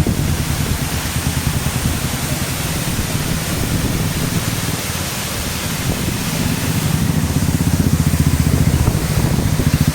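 A vehicle engine running with a fast, steady low throb that grows louder over the last few seconds, over a constant hiss.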